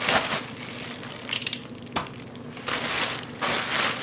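Clear plastic shipping bag crinkling in several bursts as a packed daypack is pulled out of it.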